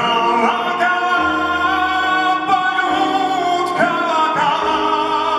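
A slow song: a held, sung melody line over instrumental accompaniment with a steady bass.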